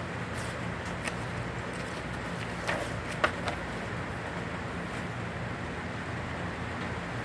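Glossy magazine page being turned by hand: a few short paper rustles, then a sharp slap about three seconds in as the page lands, over a steady low background hum.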